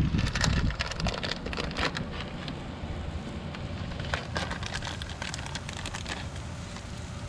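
Kingfish burger patties sizzling on a hot grill: a steady frying hiss with scattered crackles and pops.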